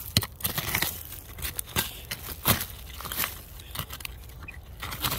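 Pronged hand digging tool and gloved hand scraping and pulling through dry leaf litter, roots and soil: irregular crunching, tearing and rustling with sharp crackles scattered through.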